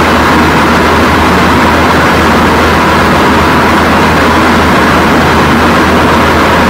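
Loud, steady rushing noise with a constant low hum underneath, unchanging throughout.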